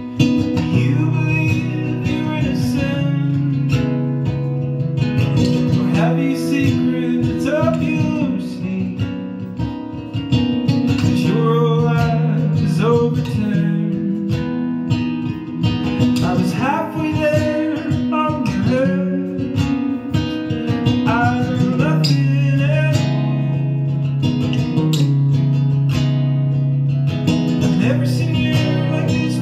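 Acoustic guitar playing an instrumental passage of a folk song live, picked notes over held bass notes.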